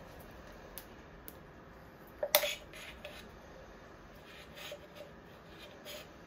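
Light clicks and taps of metal cookware being handled, with one sharper metallic clink about two seconds in that rings briefly.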